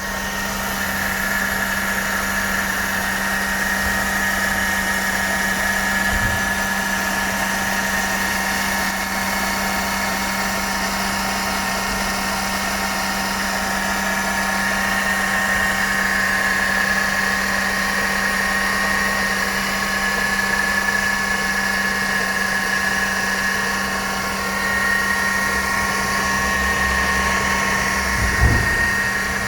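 Mercedes-Benz W211 E200 Kompressor's supercharged four-cylinder engine running steadily, with a steady high whine from the supercharger over a lower hum: an abnormal supercharger noise. A brief low thump near the end.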